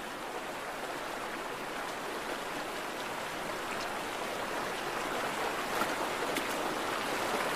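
Salmon stream water running steadily, growing slightly louder toward the end, with a few faint clicks over it.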